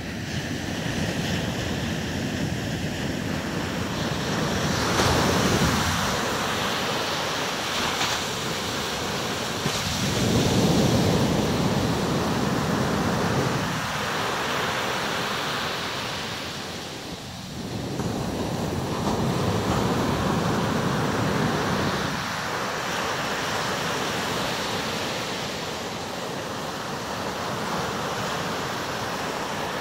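Atlantic Ocean surf breaking and washing up the beach. The rush swells into a louder surge every several seconds as each wave breaks, then eases off.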